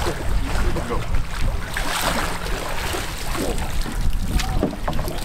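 Wind buffeting the microphone as a steady low rumble, over water splashing and streaming off a pier drop net as it is hauled up out of the sea with a red drum in it, the splashing strongest about two seconds in.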